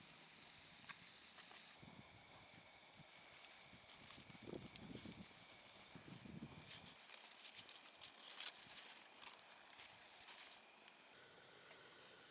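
Faint handling sounds: light rustling, clicks and taps over a steady hiss, busiest in the middle with a sharper tap about eight and a half seconds in.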